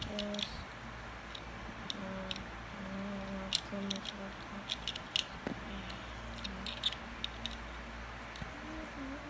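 Sharp little plastic clicks and clacks of Lego bricks as the push-button mechanism of a homemade Lego safe is worked by hand, coming irregularly, a dozen or so.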